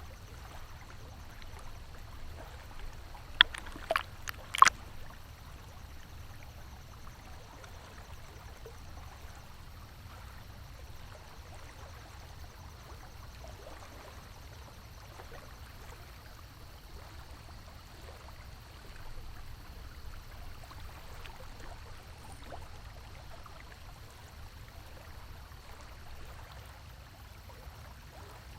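Steady sound of flowing stream water. A few sharp knocks come between about three and five seconds in.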